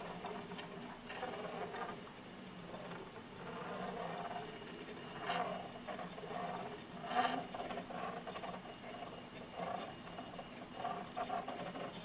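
Motors of a homemade direct-drive drawing arm running as it steers a pen across paper: a steady hum that swells and fades in short spurts with the arm's movements, with two brief louder sounds about five and seven seconds in.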